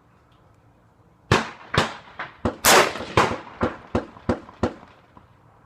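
AR-15 rifle in .223/5.56 firing a quick string of about ten shots, starting about a second in, at roughly two to three shots a second, the loudest near the middle.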